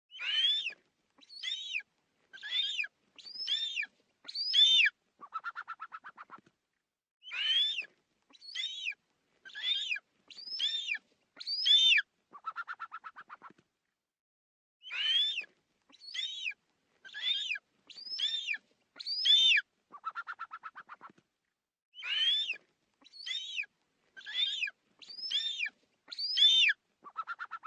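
Eagle calls played as a looped sound effect: five short, high cries that curve downward, then a lower stuttering chatter about a second long, the whole sequence repeating about every seven and a half seconds, four times.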